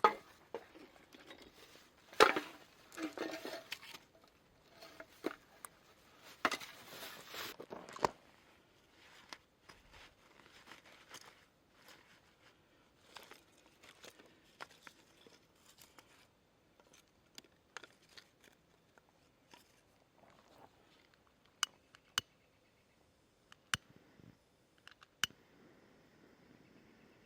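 Handling noises: bursts of rustling and crinkling for the first several seconds, then scattered light taps and a few sharp clicks near the end.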